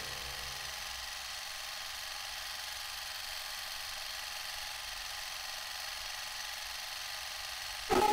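Steady whirring hiss of a vintage cine camera's film motor running while it films. A sudden loud noise breaks in at the very end.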